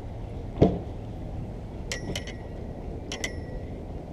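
A dull knock, then two short metallic clinks that ring briefly, about a second apart: fishing tackle striking the pier's metal railing as a small fish is hauled up on a hand line.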